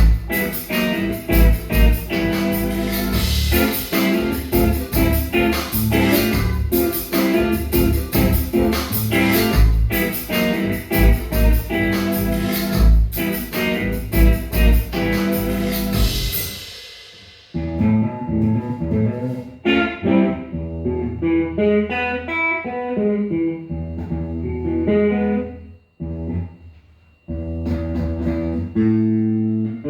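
A band playing at a soundcheck: electric guitar and bass over a drum kit, the drums and cymbals dropping out a little past halfway while the guitar and bass play on, with a brief stop near the end.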